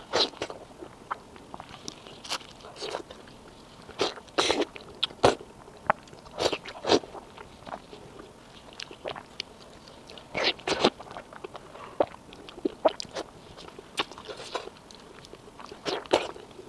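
Close-miked eating sounds of spicy pork belly being bitten and chewed: irregular clicks and short crunchy bursts, with louder clusters every few seconds.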